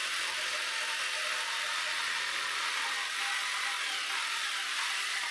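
Corded electric jigsaw running steadily as its blade cuts through a wooden board, a continuous hissing motor-and-blade noise that stops at the very end.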